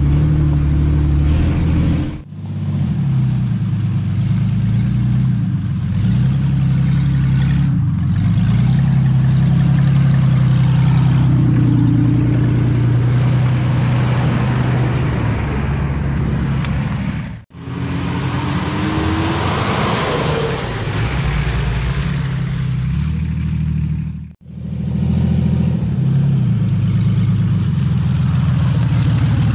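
Engines of off-road 4x4s, a Jeep Cherokee and a Nissan Patrol Y60, running steadily at low speed with small rises and falls in revs as they crawl along muddy trails. The sound cuts out briefly three times between shots.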